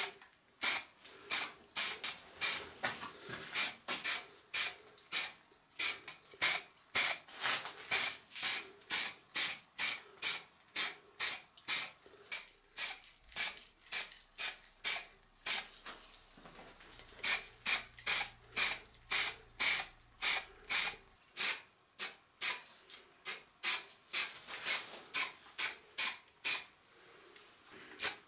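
Aerosol spray paint hissing in quick short bursts, about two a second, with a brief pause about two-thirds of the way through, as an aluminium motor housing is coated in grey primer and then red paint.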